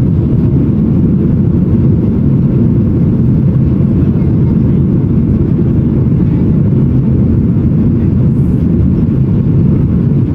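Steady, deep engine and airflow noise inside the cabin of a Boeing 737-800 climbing out after takeoff, even in level with no changes.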